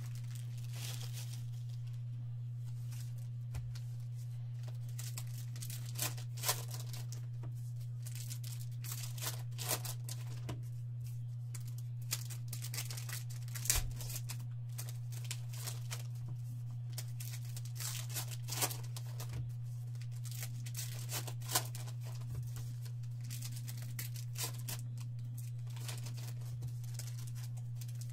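Trading-card pack wrappers torn open and crinkled by hand, in many short, sharp crackles scattered throughout, over a steady low hum.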